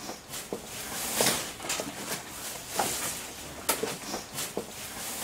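Footsteps and rustling indoors, with scattered light knocks and clicks at irregular intervals.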